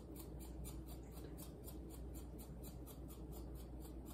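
Shaker-top spice jar of pepper being shaken over food: a quiet, even rattle at about five shakes a second.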